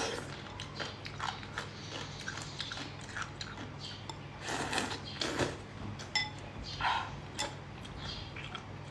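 Eating sounds: irregular biting, chewing and crunching of food, louder in a few clusters, with a brief high squeak about six seconds in.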